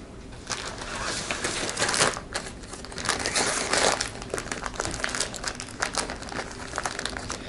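Plastic bags and pouches crinkling and rustling as they are handled, with irregular crackles throughout.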